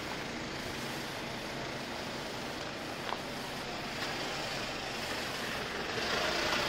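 Street traffic ambience: a steady hiss of road noise, with a vehicle passing and growing louder near the end. A single faint click about three seconds in.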